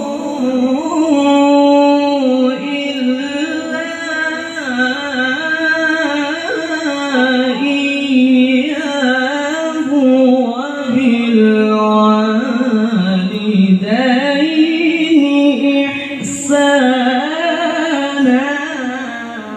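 A man reciting the Quran in the melodic qari style, amplified through a handheld microphone. The long, ornamented phrases glide up and down in pitch, with short breaks for breath between them.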